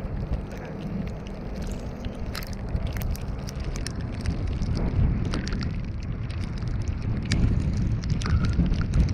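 Car driving: a steady low rumble of road and engine noise with scattered light ticks and clicks, growing louder and rougher near the end.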